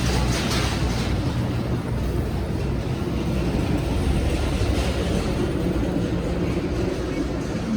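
Wind buffeting the microphone: a steady, rumbling rush of noise with no pauses.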